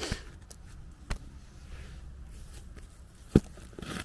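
A few short knocks of rock being set down around a freshly dug fire pit, the loudest about three seconds in, over a low rumble of wind on the microphone.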